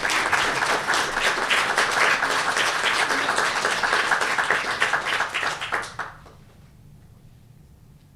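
Audience applauding, a dense run of many hands clapping that dies away quickly about six seconds in.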